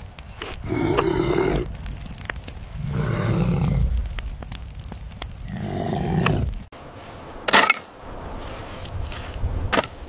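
Deep roars, three in a row, each lasting about a second, with short sharp cracks and knocks between them and one louder crack a little after the last roar.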